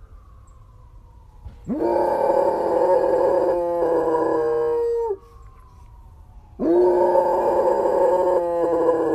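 A dog howling: two long howls, each sliding up in pitch at the start and then held steady for about three seconds, with a short pause between them.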